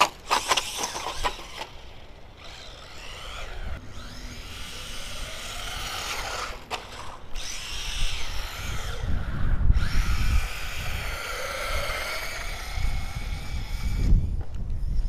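WLToys A979 RC truck's brushed electric motor whining, rising and falling in pitch as the throttle is worked, with a few knocks near the start as the truck bounces on concrete. Wind rumbles on the microphone at times.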